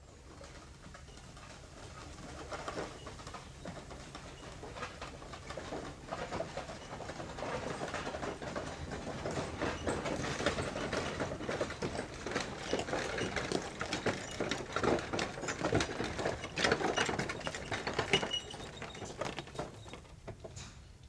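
Horse hooves clopping and a wooden cart rattling and creaking as it rolls along. The clatter grows louder through the middle of the clip and drops off near the end.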